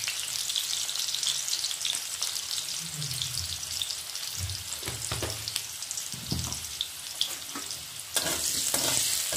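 Boiled potato chunks frying in hot oil in a kadai, a steady sizzle with crackling. About eight seconds in, the sizzle gets louder as a wooden spatula starts stirring the potatoes.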